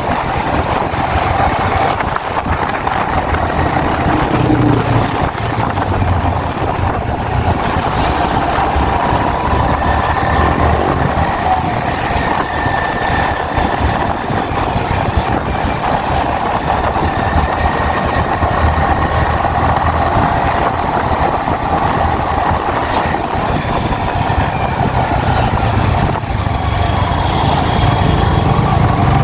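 Yamaha XSR 155's single-cylinder engine running steadily on the move, its pitch drifting only a little.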